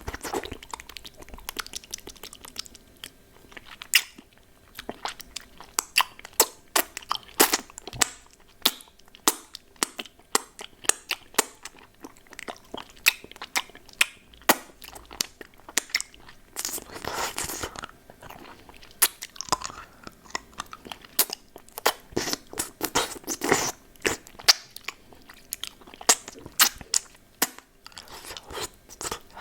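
Close-miked mouth sounds of a hard candy lollipop being eaten: many sharp crunches and clicks, with two longer, noisier stretches about 17 and 23 seconds in.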